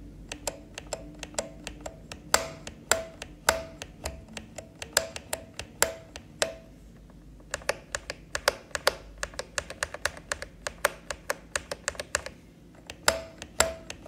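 A defective left Ctrl key on a DrunkDeer A75 Hall Effect keyboard, pressed over and over. Each press gives a click with a short ringing tone, and the key sounds scratchy and noisy. In the middle stretch the neighbouring Alt key is pressed instead, with quicker, clean clicks that lack the ring. Near the end the Ctrl presses return.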